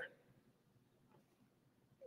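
Near silence: faint room tone in a pause between sentences.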